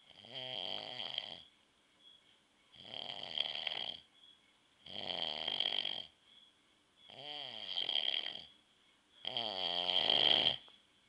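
A man snoring in his sleep: five snores about two seconds apart, each lasting over a second.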